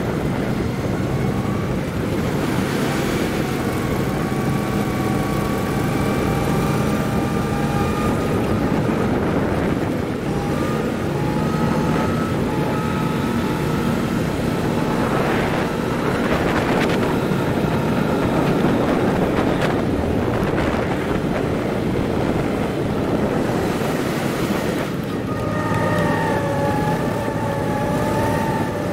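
Small go-kart petrol engines running at speed around a track, the engine note rising and falling with the throttle through the corners, over steady wind rumble on the microphone.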